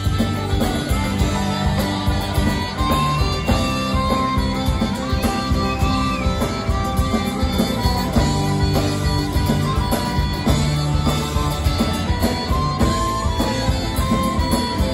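Live rock band playing an instrumental break: a harmonica, cupped against a vocal microphone and amplified, plays a solo over electric guitars and a steady drum beat.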